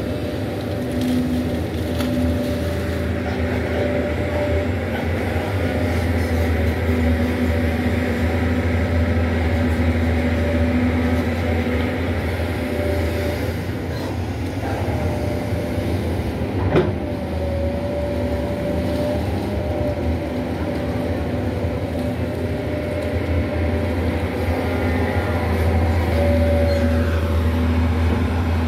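Doosan crawler excavator's diesel engine running steadily under load as the machine works its way out of a muddy pit, with higher tones that come and go over the low engine drone. A single sharp knock about seventeen seconds in.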